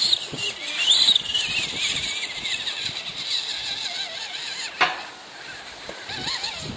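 Electric motor and gear drive of a Tamiya CR-01 radio-controlled rock crawler whining, the pitch rising and falling with the throttle as it crawls over dirt and onto rock. A sharp click about five seconds in.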